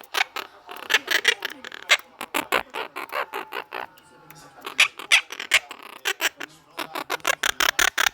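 Pet parrot making a rapid string of short, sharp calls, several a second, with a brief lull midway and a faster run near the end.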